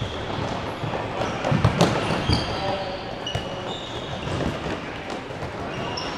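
A futsal ball being kicked and bouncing on an indoor court in a large hall, with a few sharp knocks about one and a half to three and a half seconds in. Short high squeaks, likely players' shoes on the court, come and go throughout.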